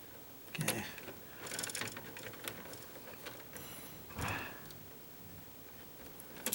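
Wire strippers clicking and rasping in short runs as the insulation is worked off a copper wire end.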